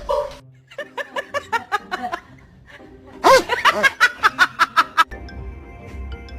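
Snickering laughter in two runs of quick, pitched pulses, about seven a second, the second run louder. About five seconds in, music takes over.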